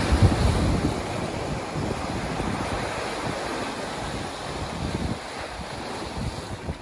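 Ocean waves washing in, with wind buffeting the microphone; loudest in the first second, then easing off.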